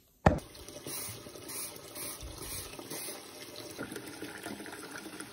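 Tap water running steadily into a sink, as when washing dishes, after a sharp knock just after the start.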